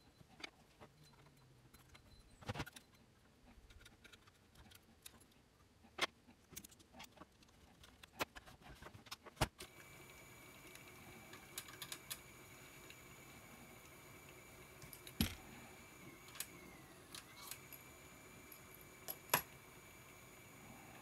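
Light clicks and small metallic taps from fingers handling the transport mechanism of an open AKAI GXC-709D cassette deck, with a few sharper clicks. About halfway through, a faint steady whine sets in.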